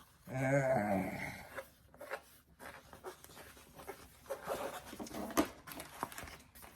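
Packaging being handled by hand: irregular rustling and scraping with scattered small clicks, for about five seconds after a brief vocal sound.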